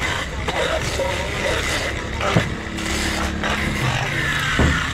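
Busy street-market ambience: a vehicle engine running close by, background voices, and a couple of sharp knocks, one a little over two seconds in and one near the end.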